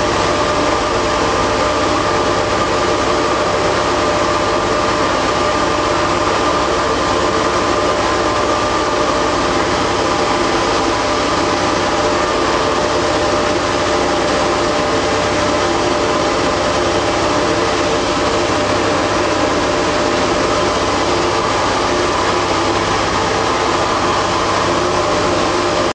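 Motors and pumps of a waste engine oil purification plant running with a steady, unchanging mechanical hum.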